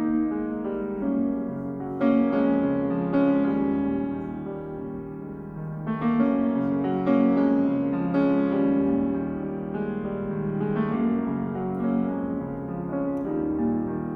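Slow, gentle piano music: single sustained notes and chords struck every second or two, each ringing on as it fades.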